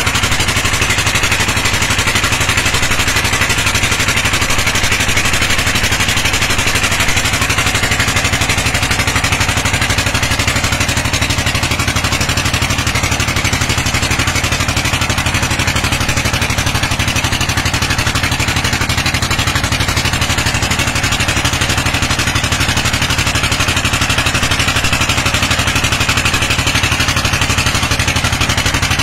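A dompeng single-cylinder diesel engine running steadily under load, driving the water pump of a land tin-mining rig, with a hiss over it that swells near the start and again near the end.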